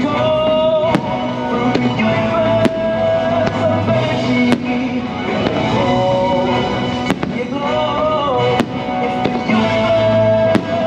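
Fireworks shells bursting, several sharp bangs a second or two apart, over a loud melodic show soundtrack.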